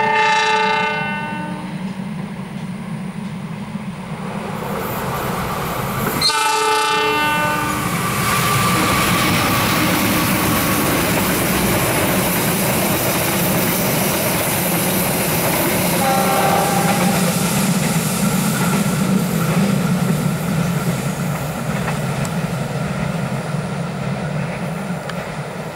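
A diesel locomotive's air horn blows twice, about six seconds apart, each blast under two seconds long. A passenger train then runs past with a steady rumble and wheels clattering on the rails, and a short shrill tone sounds about sixteen seconds in.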